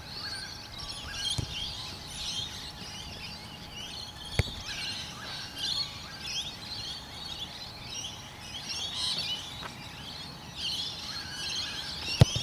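Birds chirping and singing continuously. A football is struck hard near the end with a single sharp thud, the loudest sound. A smaller sharp knock comes about four seconds in.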